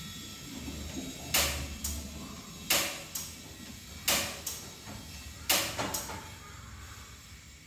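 Four pairs of short scraping strokes, like something being rubbed or scrubbed back and forth. The pairs come about a second and a half apart, over a low steady hum.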